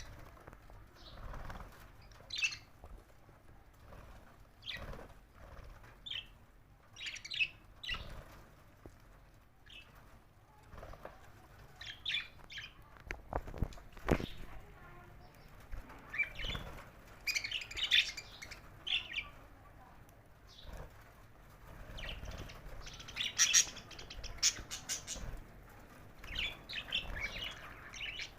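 Budgerigars chirping in short scattered bursts, with wings fluttering and a few brief knocks.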